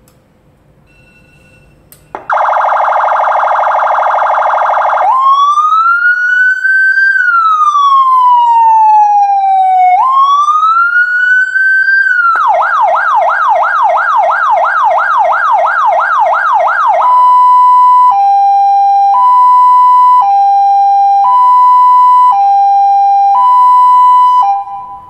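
Electronic emergency-vehicle siren stepped through its tones: after a click about two seconds in, a steady buzzing horn tone, then a slow wail rising and falling twice. Next comes a fast yelp at about four sweeps a second, then a hi-lo two-tone alternating about once a second, which cuts off just before the end.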